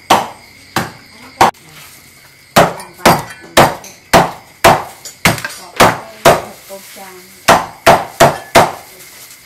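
A cleaver chopping through crispy roast pork onto a thick wooden chopping block. It makes a series of sharp, loud chops, at times two or three a second, broken by short pauses.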